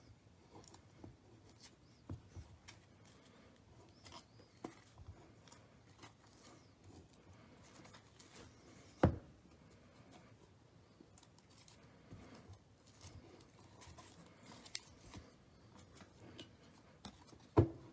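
Trading cards and plastic card holders handled on a table: faint sliding and light clicks as cards are gathered into stacks, with a sharper knock about nine seconds in and another near the end.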